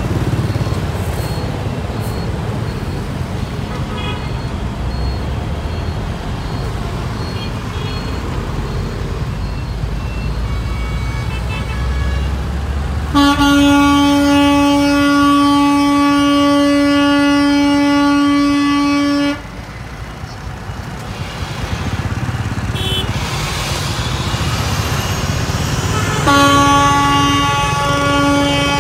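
Heavy road traffic: trucks, cars and motorbikes passing with a steady engine and tyre rumble. A vehicle horn sounds one long blast of about six seconds midway, then sounds again near the end with a brief break.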